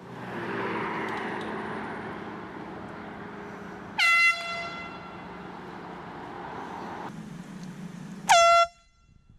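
Handheld air horn blown in two short blasts, about four seconds apart, each lasting about a third of a second, over a steady background rush.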